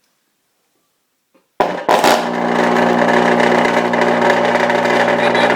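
A car-audio subwoofer wired straight to a household wall outlet, buzzing loudly and steadily on the mains current. The cone is being driven to destruction by the AC. It starts suddenly with a pop about a second and a half in.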